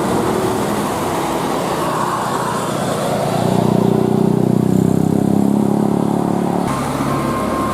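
A heavy road vehicle's engine passing close, with traffic noise around it. The engine grows louder about three seconds in and cuts off abruptly near the end.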